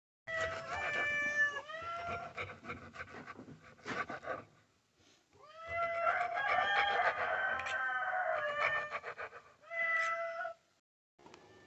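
A cat meowing repeatedly: a few short meows that rise in pitch, one long drawn-out meow from about six to nine seconds in, and a short one near ten seconds. Light knife taps on a wooden cutting board come between the meows.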